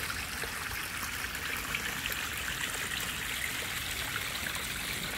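Water from a small rock-garden water feature trickling and splashing over stones: a steady, even rush with a light crackle of small splashes.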